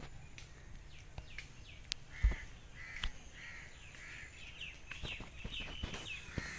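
Birds calling outdoors: a run of about four harsh, repeated calls, then quick higher chirps near the end, with a few sharp knocks scattered through.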